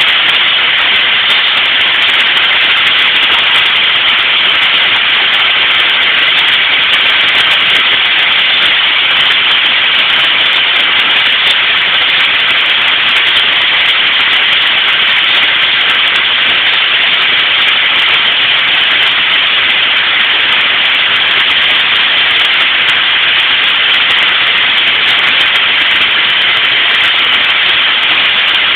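Two fire hose nozzles spraying high-pressure water streams: a loud, steady hiss.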